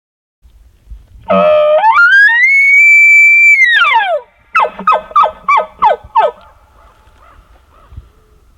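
Bull elk bugle: a low rough start climbs into a long high whistle, held for about two seconds, then slides back down. About half a second later come six quick falling grunts, the bugle's chuckles.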